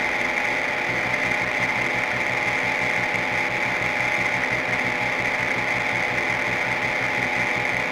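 Experimental noise music: a dense, unbroken drone with a fast, even, machine-like clatter underneath, steady and loud.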